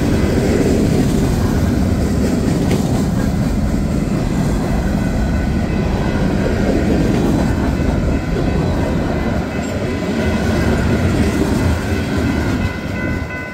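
Freight train of tank cars and covered hopper cars rolling past at close range: a steady rumble of steel wheels on rail with a wheel clickety-clack. A grade-crossing warning bell rings beneath it and comes through more clearly near the end as the rolling noise eases.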